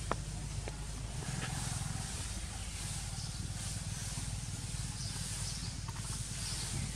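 Outdoor ambience: a steady low hum under a constant high hiss, with a few faint clicks in the first second or so.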